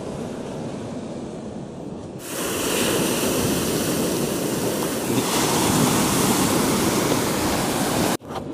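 Sea surf: waves breaking and washing up the shore as a steady rushing noise. It comes in suddenly about two seconds in, over quieter background noise, and cuts off abruptly near the end.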